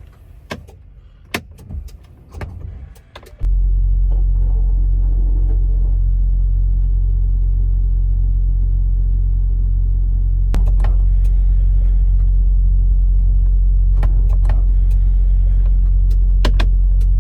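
A few sharp clicks and knocks, then, about three and a half seconds in, a diesel semi-truck engine idling close by: a steady low rumble that starts suddenly and grows slightly louder about ten seconds in.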